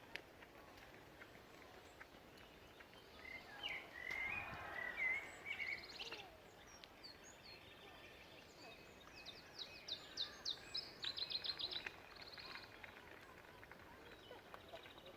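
Songbirds singing faintly: a warbling phrase about four seconds in, then quick runs of short high notes about nine to twelve seconds in, over low background noise.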